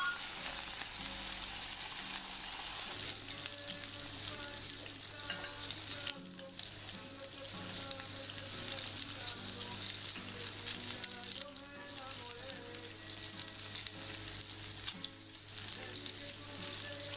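Slices of Iberian pork secreto sizzling and crackling in hot oil in a frying pan, a steady dense patter of fine crackles.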